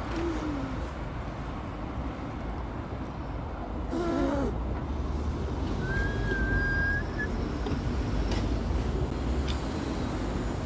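Subway station ambience: a steady low rumble and hum. A brief voice or call comes about four seconds in, and a thin high steady tone lasts about a second near the middle.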